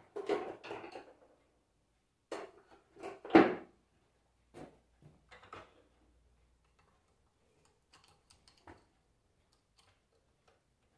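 Metal tools clattering in bursts, loudest a few seconds in, then a few light metallic clicks and scrapes of a slotted screwdriver working at the Bendix drive on a starter-motor armature held in a bench vise.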